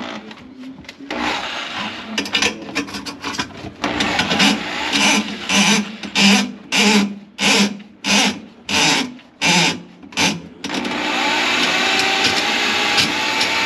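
Drain-clearing equipment working on a kitchen drain line clogged with grease. About ten short rhythmic pulses come roughly one and a half a second, then a machine starts about eleven seconds in and runs steadily, with a whine rising near the end.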